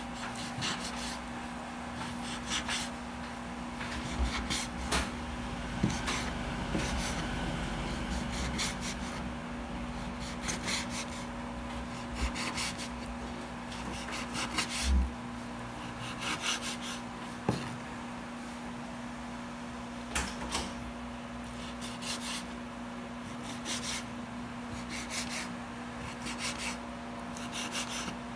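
Kitchen knife chopping marinated pork on a wooden cutting board: irregular knocks of the blade striking the board, in short runs, over a steady low hum.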